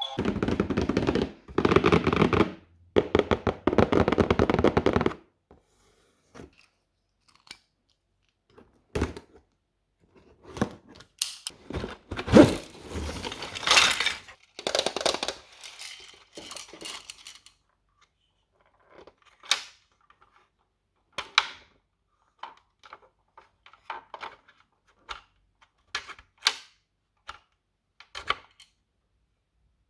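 Unboxing of a plastic toy playset: dense rustling and tearing of packaging for about the first five seconds, another burst of handling noise around the middle, then scattered clicks and taps of small plastic pieces being handled.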